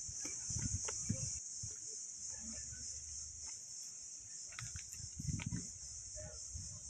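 Steady high-pitched insect chorus, with a few soft, low footfalls on a dirt and stone path.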